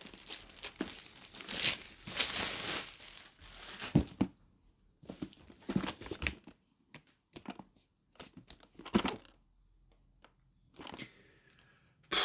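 Cellophane wrapping crinkling and tearing as it is pulled off a boxed figure, dense for the first few seconds, then giving way to scattered short rustles and light taps with quiet gaps between.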